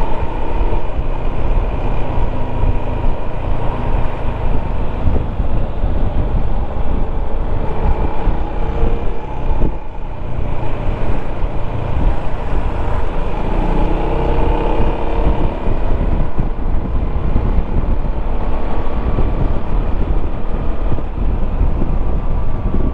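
Yamaha XMAX 300 scooter's single-cylinder engine running under way, mixed with heavy wind and road noise picked up by a helmet-mounted microphone. The engine's pitch drifts up and down with the throttle.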